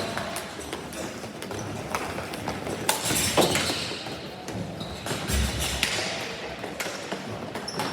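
Ball hockey play: scattered sharp clacks and knocks of sticks and the ball on the court, with a low thud about five and a half seconds in.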